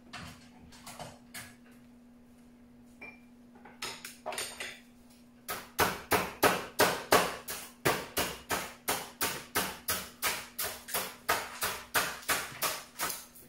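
Hammer blows in a steady run, about three a second and loud, starting about five seconds in after a few scattered knocks. A steady low hum runs underneath.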